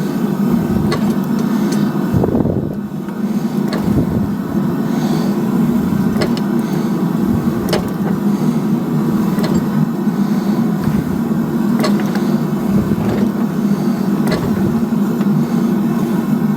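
A steady mechanical drone runs throughout, with occasional sharp metallic clicks and knocks from hot 6 mm steel plate being pressed over a steel ball bearing in a doming block with a hand-operated fly press.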